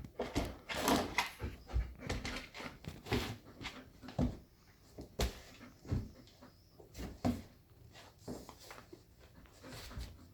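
A golden retriever and a cat at play: irregular bumps, knocks and scuffling, thickest in the first few seconds and thinning out later.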